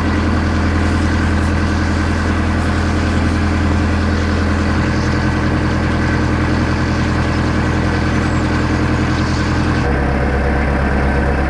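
Narrowboat's diesel engine running steadily while cruising, a low even drone. Its pitch drops slightly near the end.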